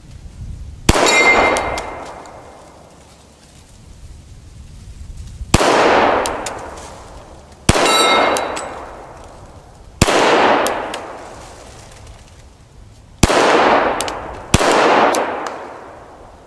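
Six shots from a Glock 41 .45 ACP pistol, a few seconds apart, each trailing off in a long echo. The first and third shots are followed by the brief ringing clang of a steel target being hit.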